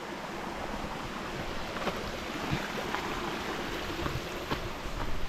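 Small rocky stream running steadily over stones, with a few faint footfalls on the leaf-covered trail.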